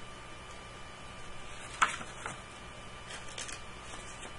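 Pen tapping and scratching on paper during handwriting: a sharp tap a little under two seconds in, a softer one shortly after, and a few faint strokes later, over a steady electrical hum.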